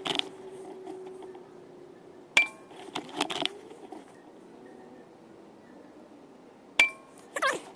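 Air gun fired twice, about 4.4 seconds apart; each shot is a sharp crack with a brief ringing, followed within a second by a run of metallic clicks and clinks as the action is worked to reload.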